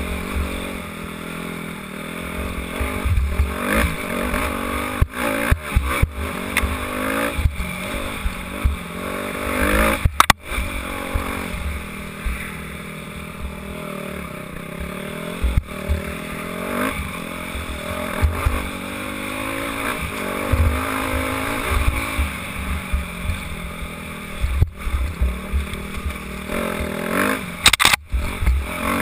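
Dirt bike engine revving up and down as it is ridden over rough trail, heard from a helmet-mounted camera. Sharp knocks and rattles come through at irregular moments.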